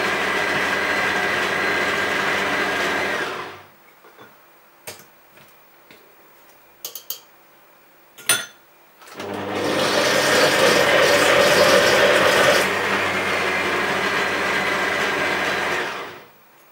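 Kenwood Chef Sense's 1100 W motor running its blender attachment in thick hummus: it runs, is switched off for about five seconds with a few clicks, then starts up again and runs until switched off near the end. About three seconds after the restart the sound changes as the blade jams and stops spinning, while the motor keeps running: the blender cannot cope with the hummus.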